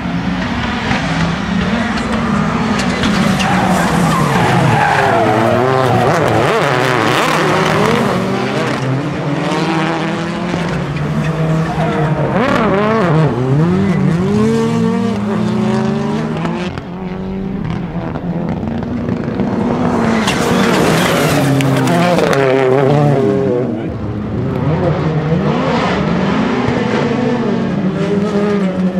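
Rallycross Supercars racing flat out, several engines at once revving high and falling back through gear changes, with tyres skidding. The sound dips briefly about 17 and 24 seconds in.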